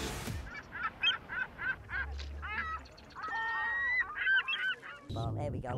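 Gulls calling: a run of short, evenly repeated yelps, then a few longer drawn-out calls. About five seconds in, the hum of a busy street crowd comes in.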